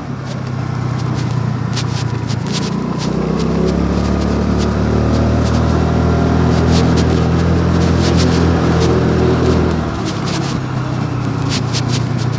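Honda Dio 110 cc scooter's single-cylinder four-stroke engine running under way. It grows louder about two to three seconds in, holds, then eases off about ten seconds in.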